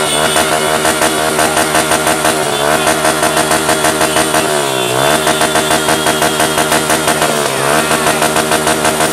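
Motorcycle engine held at high revs, its pitch dipping and climbing back three times as the throttle is let off and reopened, with a steady throbbing pulse.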